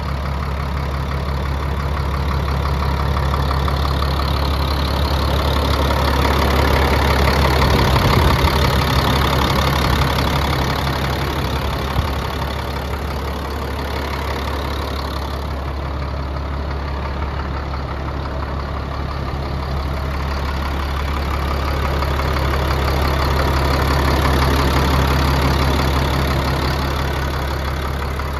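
Freightliner FL70 truck's Cat diesel engine idling steadily, growing louder and softer twice.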